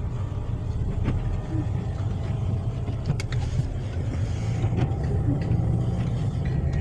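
A car driving on a snow-covered road, heard from inside the cabin: a steady low rumble of engine and tyres, with a few faint clicks.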